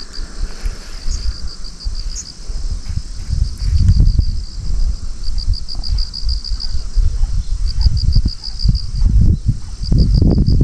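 Insects trilling in quick, even pulses, with short pauses between bursts, over a loud, uneven low rumble of wind buffeting the microphone.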